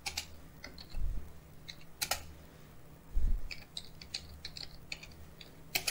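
Typing on a computer keyboard: irregular keystroke clicks, with a couple of duller low thumps about a second and three seconds in.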